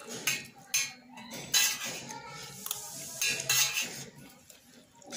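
Metal spoon scraping and clinking against a large metal plate while scooping up food: a run of short scrapes through the first three and a half seconds, growing fainter near the end.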